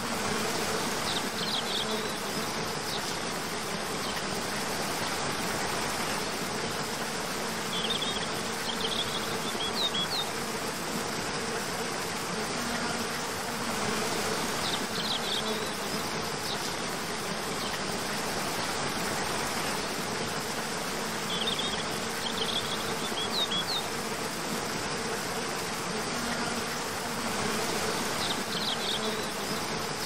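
Steady rush of a cascading waterfall, with an insect's buzzing hum fading in and out. Short clusters of high chirps come every six or seven seconds.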